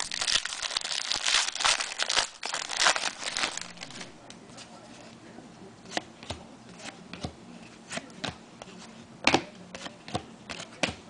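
Trading-card pack wrapper crinkling and tearing for about the first four seconds. After that come scattered light clicks and taps of cards being handled, with one sharper click a little after nine seconds.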